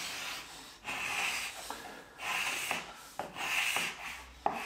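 Carbide scraper pulled in short strokes across a wooden kitchen worktop, about one rasping stroke a second, taking fine shavings off the old oil finish and stains around the tap base.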